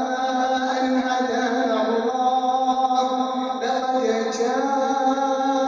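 A man's voice chanting Quran recitation in long, drawn-out melodic notes, the pitch gliding slowly from one note to the next.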